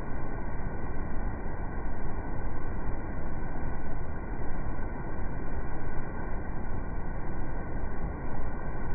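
A coastal ship's wake churning astern: a steady, deep, muffled rush of water, slowed down along with the slow-motion footage.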